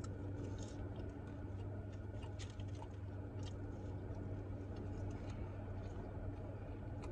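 A person chewing fries with the mouth close to the microphone: small wet clicks and crunches scattered through, over a steady low hum.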